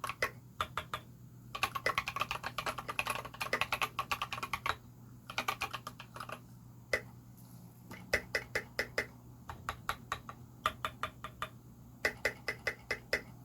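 Typing on an ALF3 Renova mechanical keyboard fitted with tactile Holy Panda switches and SA-profile keycaps. Fast runs of keystrokes are broken by short pauses, and in the second half come slower, evenly spaced single strokes at about five a second.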